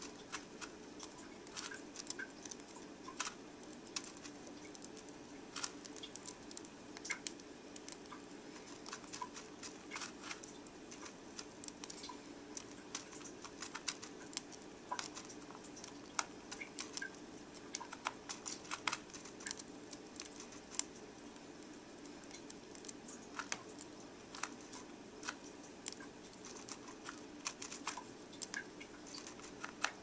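Cockatiels eating from their food cups: irregular quick clicks and small taps of beaks cracking and picking at seed, over a steady hum.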